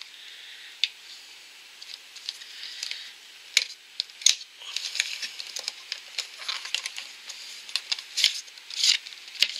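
A cardboard makeup-palette box being worked open by hand: rustling and scraping of card with many sharp clicks, and a few louder snaps about three and a half, four, eight and nine seconds in.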